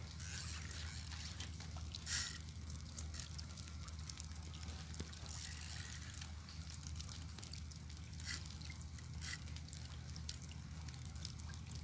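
Heavy rain falling steadily, a constant wet hiss with water sloshing, and a few short sharp ticks scattered through it.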